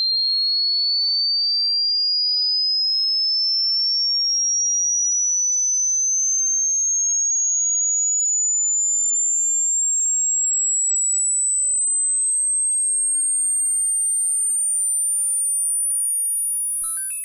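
Hearing-test tone: a single very high-pitched pure sine tone rising slowly and steadily in pitch, sweeping upward to find the highest pitch the listener can still hear. It fades out with a brief crackle near the end.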